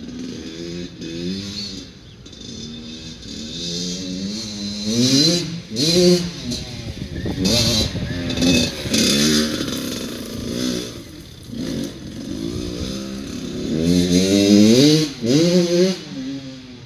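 Kawasaki dirt bike engine being ridden hard, revving up again and again with its pitch climbing on each throttle and dropping back between.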